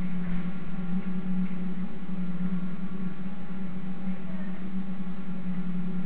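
Steady machine hum at one constant low pitch.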